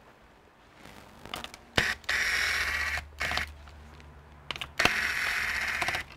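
Handheld air blower giving two blasts of air of about a second each into a laptop's cooling fans to clear out dust, each blast starting with a sharp click.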